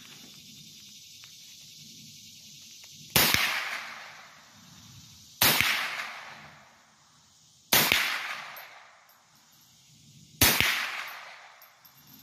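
.22 caliber rifle fired four times, two to three seconds apart. Each shot is a sharp crack followed by an echo that dies away over about a second and a half.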